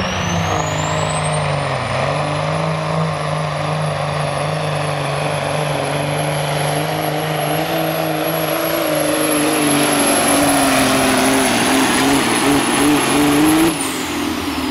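Semi truck's Caterpillar diesel engine at full load pulling a weight-transfer sled. The turbocharger whistle climbs steeply in the first two seconds as it spools up, then holds high. Near the end the driver lets off: the engine drops and the turbo whistle winds down.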